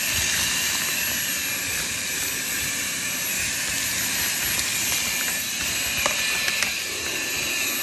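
Vacuum cleaner running with a steady hiss as its nozzle sucks dust and grit off fireplace bricks. A couple of sharp ticks about six seconds in are bits of grit being drawn in.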